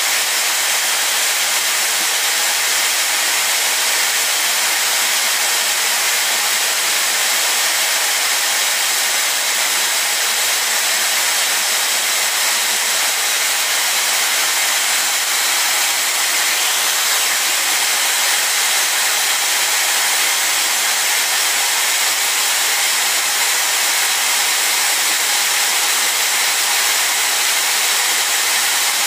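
Electric drill running steadily with an abrasive stone drum mounted in its chuck: an even motor-and-fan whir with a hiss that holds unchanged throughout.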